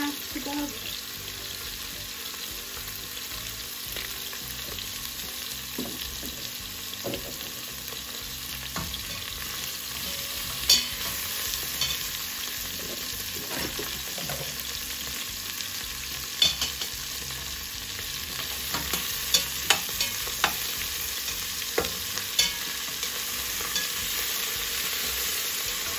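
Potatoes, onions and peppers frying with a steady sizzle in the steel inner pot of an electric pressure cooker, while a metal slotted spatula stirs them, giving a few sharp clicks and scrapes against the pot, most of them in the second half.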